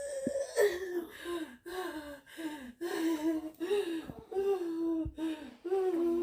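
A woman's wordless whimpering and moaning in distress: short, falling cries one after another, with a sharp catch of breath about half a second in.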